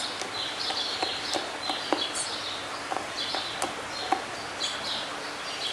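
Birds chirping in quick, repeated short calls, with sharp clicks scattered among them.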